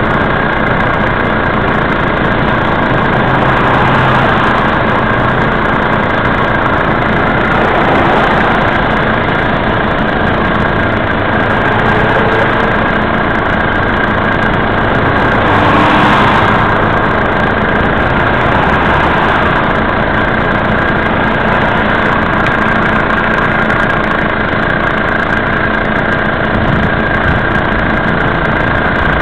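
A vehicle engine idling steadily at a standstill, a loud, even rumble with no change in pace.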